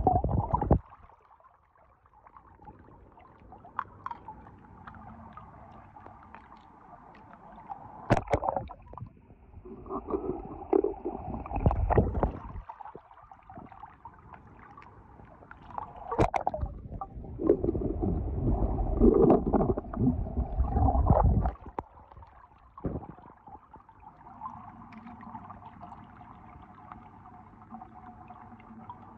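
Pool water sloshing and gurgling in irregular loud bursts as a hand moves through it and lifts small die-cast toy cars out, with a few sharp knocks along the way.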